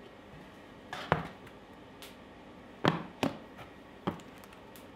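Objects being set down on a workbench top: a tin pail, a bottle and a brush. There are five or so sharp knocks and clunks, with the strongest about one second and three seconds in.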